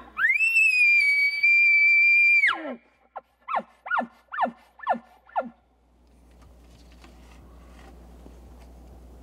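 Bull elk bugling. A high whistle climbs, is held for about two seconds, then drops away into a low end, followed by five quick chuckles.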